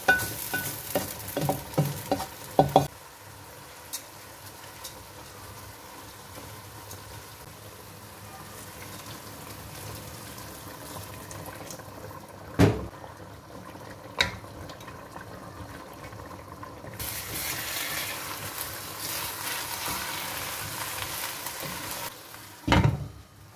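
Wooden spoon stirring rice in a nonstick pot, with quick scrapes and clicks for the first few seconds, then a steady sizzle of the pot cooking. Two sharp knocks come in the middle, and in the last third a louder hiss as the rice is stirred through simmering tomato broth, ending on a thump.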